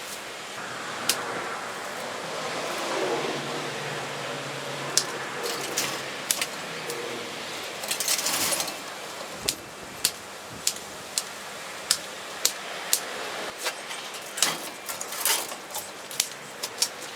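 Hand pruning shears snipping stems, sharp clicks about twice a second through the second half, with rustling of branches and foliage.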